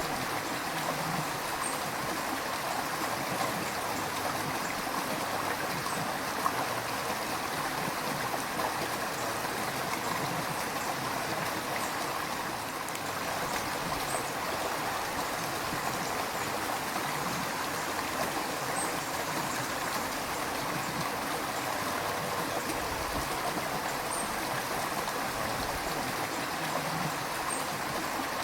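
River water flowing steadily, a continuous rushing and babbling.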